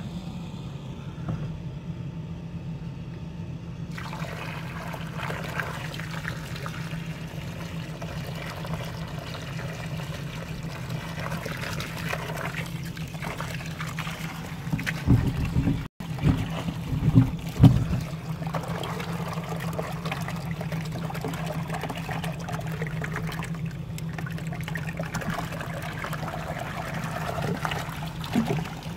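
Water gushing and splashing from a gravity-fed inch-and-a-half transfer hose into a plastic tub, over a steady low hum; the splashing grows fuller about four seconds in, and a few loud bumps come near the middle.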